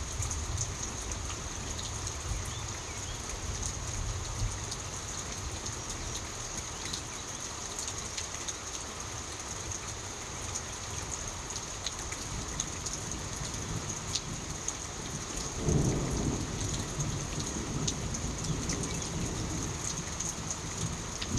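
Steady rain falling, with scattered sharp drip ticks over an even hiss. About three-quarters of the way through, a low rumble swells in and continues.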